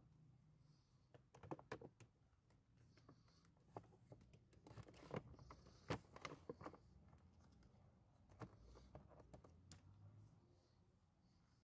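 Faint scattered clicks and rustling as a new pleated cabin air filter is slid by hand into its slot in the Hyundai Santa Fe's plastic HVAC filter housing.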